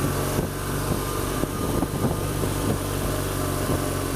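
BMW R1200GS boxer-twin engine running steadily at low speed, a constant low engine note.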